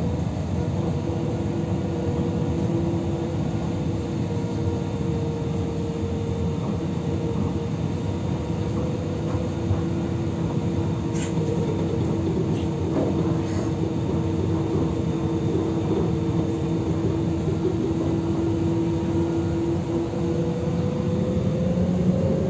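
Cabin noise of a Translohr tram, a rubber-tyred electric tram guided by a single rail, running between stops: a steady low rumble with two steady whines from its electric drive. Near the end the whines rise in pitch as the tram speeds up.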